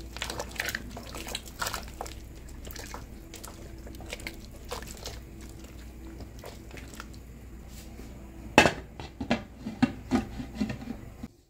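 A silicone spatula stirs a meat stew in an aluminium pressure cooker, with a run of small scrapes and taps against the pot. About eight and a half seconds in, the pressure cooker's lid is set on with a loud metal clank, followed by a few clicks as it is fitted closed.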